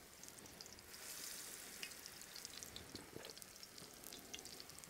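Bacon cornbread batter patties frying in melted lard in a cast iron skillet: a faint, steady sizzle with scattered small crackles.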